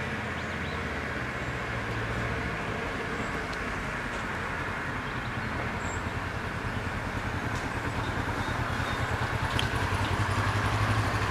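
Low engine rumble with a steady throb, growing louder near the end.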